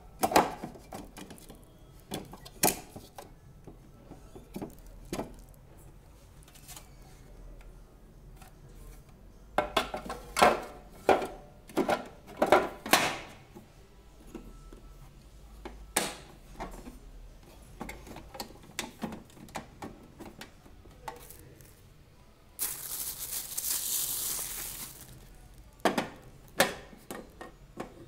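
Hard plastic juicer parts clattering, clicking and knocking as they are handled and fitted together, in scattered bursts. A rush of noise lasts about two seconds a few seconds before the end.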